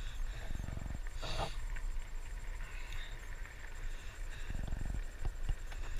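Mountain bike rolling along a dirt trail, with wind rumbling on the handheld camera's microphone, a brief swish about a second in and a few light ticks near the end.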